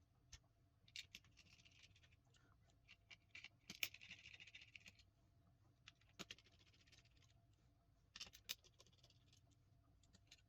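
Faint handling of a small plastic computer mouse being dismantled: a small screwdriver scratching as screws are backed out, with scattered light clicks and taps of plastic parts, the sharpest just before the middle, as the battery tray comes free.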